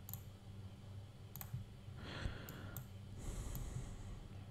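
A few faint, spaced-out computer mouse clicks over a steady low hum, with a soft rushing noise about two seconds in.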